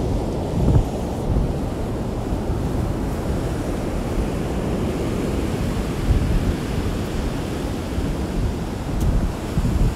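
Gusty storm wind buffeting the phone's microphone over the steady wash of heavy, rough surf. The wind rumbles up in gusts about a second in, around six seconds and again near the end.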